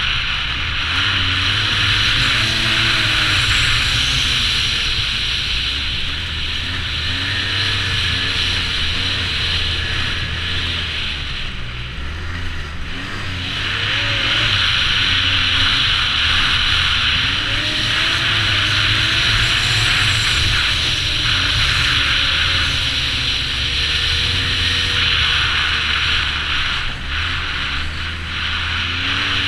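2009 Arctic Cat Z1 Turbo snowmobile's turbocharged 1,056 cc four-stroke engine running under way, its pitch rising and falling with the throttle over a steady rushing noise. It eases off briefly about twelve seconds in, then picks up again.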